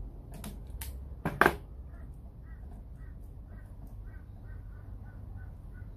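Homemade knife rock tumbler turning under drill power: a steady low motor hum with a regular high squeak about two to three times a second, after a few knocks and one loud clatter about a second and a half in.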